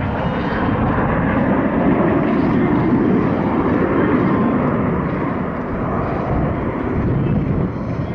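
Formation of nine Canadair CT-114 Tutor jets flying overhead: the steady rushing drone of their jet engines, swelling a little a few seconds in.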